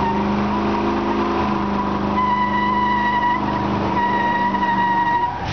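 1995 Ford SVT Lightning pickup's 5.8-litre V8 held at steady high revs during a burnout, with the spinning rear tyres squealing in a high steady whine from about two seconds in that breaks once briefly. Engine and squeal drop off just before the end.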